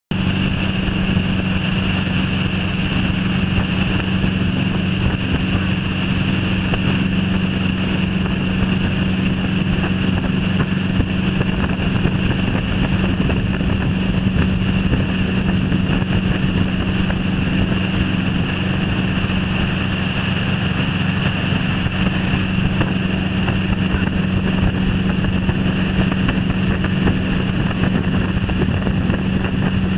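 Tow boat's engine running steadily at speed while pulling a wakeboarder: a constant hum mixed with rushing water and wind on the microphone.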